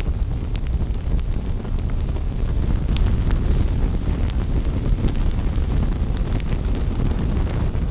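Dark ambient soundtrack drone: a deep, steady, wind-like rumble with scattered crackles and clicks.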